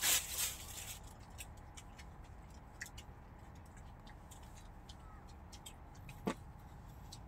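Quiet eating and drinking sounds: a short noisy rustle at the start, then scattered faint clicks and ticks over a low steady background, with one brief sharper click about six seconds in.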